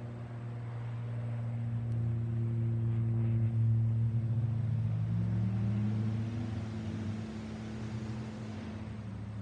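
Cessna 402C's twin piston engines and propellers droning overhead in a flyover, a steady low hum that swells toward the middle and eases off near the end. A fainter tone rises in pitch about two-thirds of the way through.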